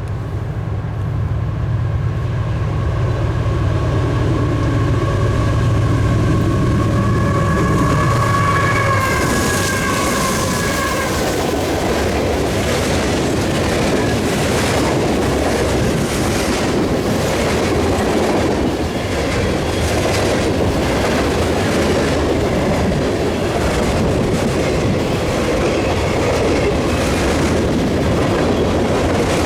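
CSX GE CW44AC diesel locomotives passing with a low engine rumble while a steady chord horn, a K5LA, sounds for about the first ten seconds. Then freight cars roll by with a rushing wheel noise and a rapid, regular clacking over the rail joints.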